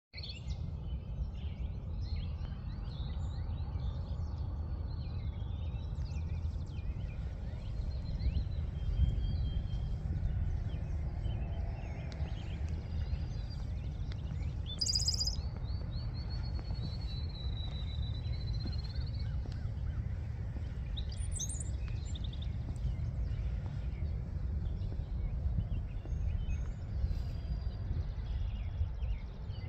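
Wild songbirds chirping and singing in short whistled phrases, with a longer song about halfway through, over a steady low rumble.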